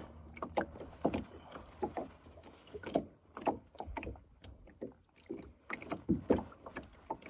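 Water slapping against the side of a small boat, with scattered short knocks and clicks from hands working at the landing net and unhooking tools at the gunwale.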